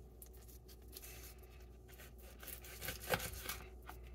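Raw whole chicken being handled and cut apart on a plastic cutting board with gloved hands: soft rubbing and small taps and tearing sounds, with a brief cluster of clicks about three seconds in.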